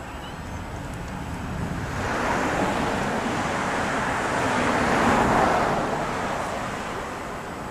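A road vehicle passing by: a rush of tyre and engine noise that swells from about two seconds in, is loudest near five seconds, then fades away.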